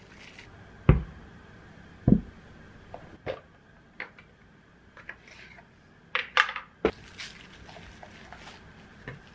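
Wrapped sandwich halves set down on a wooden cutting board with two dull thumps. Then a plastic lunch box is handled, with light clicks of its lid and container, and the rustle of paper wrapping as the sandwiches are pushed into the box.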